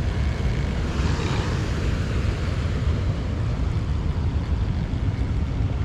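Steady rushing of water pouring through a spillway, an even noise heaviest in the low end.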